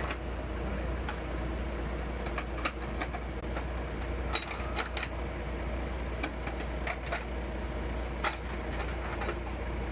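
Boom truck's engine running steadily as a low hum, with scattered light clicks and knocks of metal rigging.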